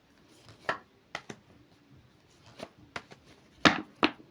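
Tarot cards being handled and put down: a string of sharp taps and slaps, irregularly spaced, the loudest about three and a half seconds in.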